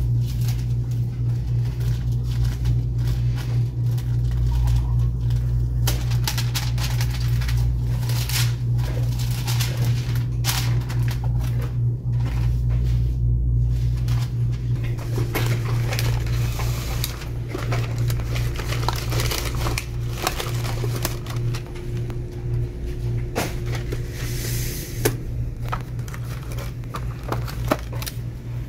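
Paper rustling with scattered light clicks and taps as gloved hands handle chocolate-box liner paper, a paper sheet and box lids, over a steady low hum.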